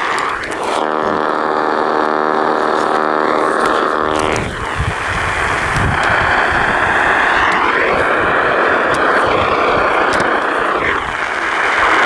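Radio static from a Sangean radio with a broken-off antenna, a loud steady hiss with no broadcast coming through. A buzzing tone sits under the static for the first few seconds, and whistles dip down and rise again a few times.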